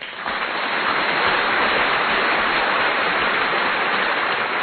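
Loud, steady hissing noise with no tone or rhythm, starting suddenly.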